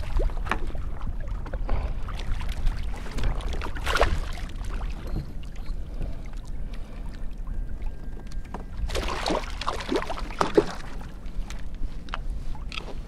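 Water splashing and sloshing around a kayak as a hooked red drum thrashes alongside, with scattered knocks on the hull and a busier burst of splashing about nine to ten seconds in.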